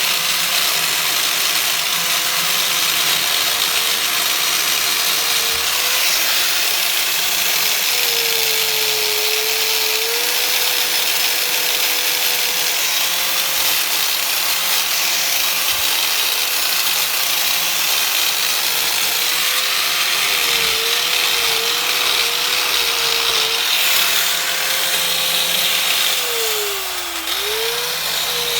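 Angle grinder running continuously while polishing aluminium engine cases. Its steady whine sags in pitch whenever it is pressed harder into the work: a few brief wobbles around twenty seconds in, and one deeper sag near the end.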